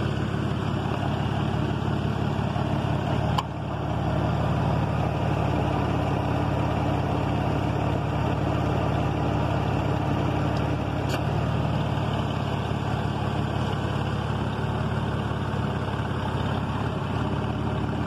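Ford van's engine idling steadily with two sharp clicks, one about three seconds in and one about eleven seconds in. The clicks are the AC compressor clutch cycling in and out because a faulty low-pressure switch keeps cutting its power.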